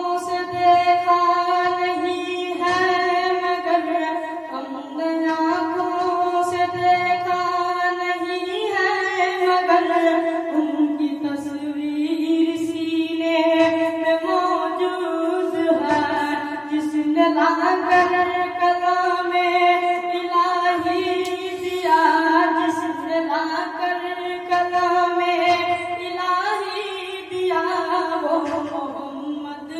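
A young boy singing a naat, an Islamic devotional song, as a single voice into a handheld microphone, with long held notes that glide and turn between pitches.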